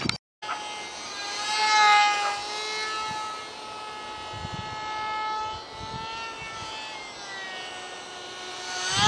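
Ultra-micro RC flying wing's small electric motor and propeller whining in flight, high-pitched and steady. The pitch and loudness shift with the throttle: it swells about two seconds in, eases off later, and rises sharply near the end.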